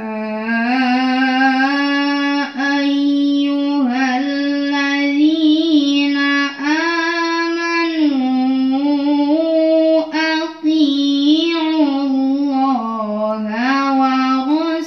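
A girl reciting the Quran in melodic tilawah style into a microphone. She holds long notes that bend up and down in ornamented turns, in several long phrases with brief breaths between.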